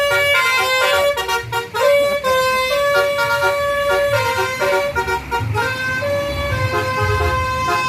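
Bus telolet horn playing a tune of held notes that step from pitch to pitch, with the bus's engine rumbling underneath, louder in the second half.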